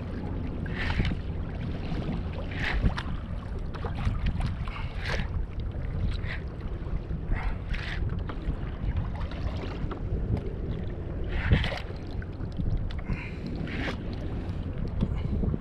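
Wind rumbling on the microphone, with small irregular splashes of water against a kayak's hull every second or two.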